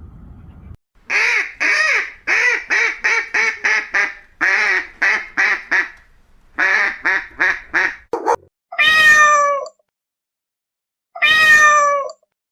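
Domestic cat meowing: a rapid run of short meows for about seven seconds, then two longer, drawn-out meows with a gap between them.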